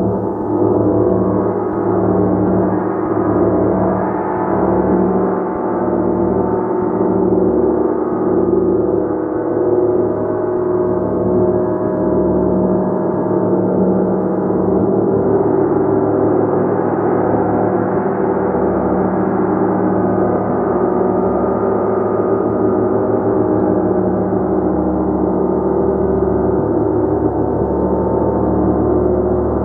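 A large gong played continuously, its dense wash of many overlapping tones sustained and shimmering at an even level, with the energy below about 2.5 kHz and no single strike standing out.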